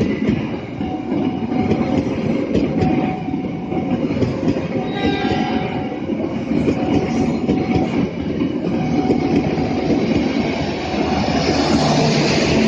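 Train passing close by, its wheels clacking over the rail joints.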